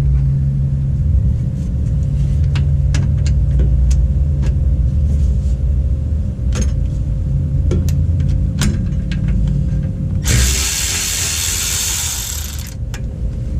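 Hand ratchet clicking in bursts as a suspension bracket bolt is worked, over a steady low hum. About ten seconds in, a loud hiss starts and runs for about two and a half seconds before cutting off.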